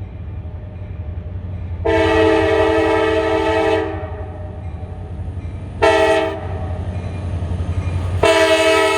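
Diesel freight locomotive's multi-chime air horn sounding the grade-crossing signal: a long blast, a short one, then another long one starting near the end. The locomotive's engine rumbles steadily underneath.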